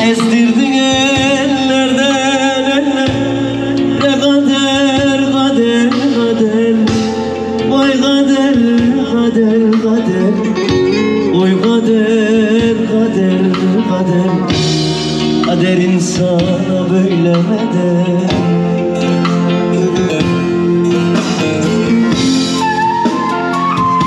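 Turkish folk music, a passage between sung verses, carried by a wavering, ornamented melody line over steady accompaniment. A higher, flute-like line enters near the end.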